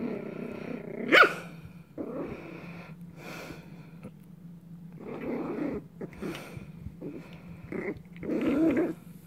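Puppy growling in short rough bouts while chewing and tugging at a leash, with one sharp yap about a second in.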